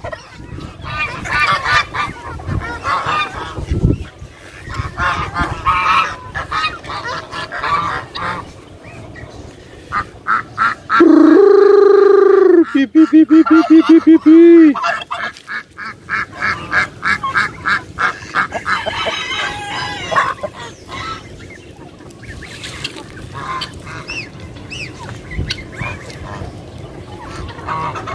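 Mixed backyard flock of chickens and ducks calling, with short clucks and squawks throughout. About eleven seconds in, one loud long call is followed by a rapid string of repeated calls, about four a second, for two seconds.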